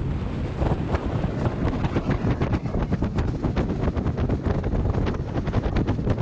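Wind buffeting the microphone on the bow of a boat under way on open sea, a steady rumble with many short sharp crackles that come thickest in the second half.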